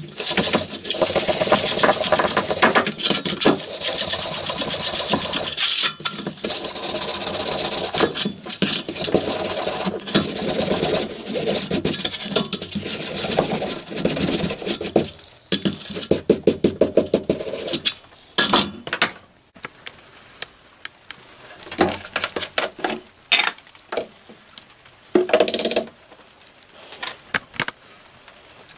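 A wire brush scrubbing rust off a steel hatchet head on a metal tray, in rapid back-and-forth scraping strokes. The scrubbing stops about two-thirds of the way through, leaving only scattered lighter scrapes and clicks.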